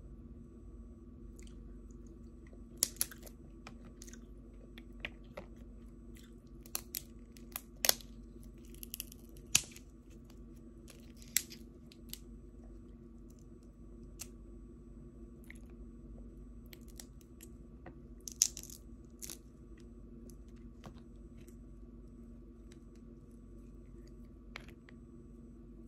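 Close-miked eating of seafood such as crab: scattered sharp cracks and crunches with chewing, a handful much louder than the rest, over a steady low hum.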